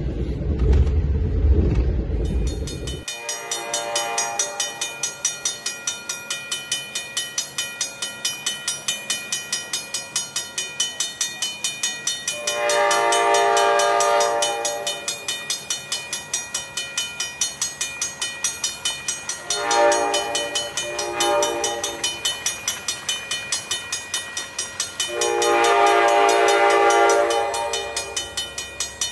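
Amtrak Vermonter train's air horn sounding for a crossing: a faint blast, then a long blast, two short blasts and a final long blast, over a regular clatter of about two or three strikes a second. A low rumble cuts off abruptly about three seconds in.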